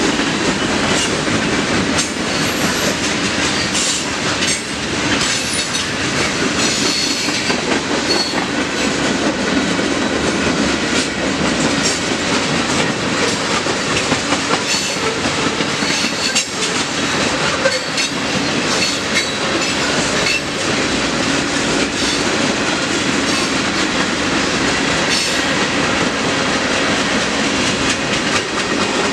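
Freight train cars (tank cars, covered hoppers and gondolas) rolling past: a steady rumble of steel wheels on rail, with a continual run of clicks as the wheels cross rail joints.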